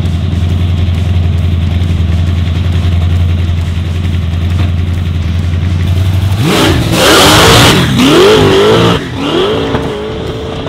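V8 drag car on the strip: a steady low engine drone, then about six and a half seconds in a sudden loud launch, the engine pitch climbing and wavering as the car accelerates hard away, easing off near the end.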